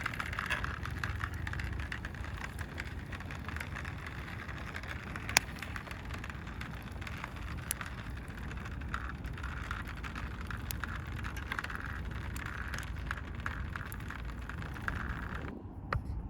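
Wood fire crackling: a steady hiss with many sharp pops and snaps, one loud crack about five seconds in, over a low rumble. It cuts off abruptly near the end.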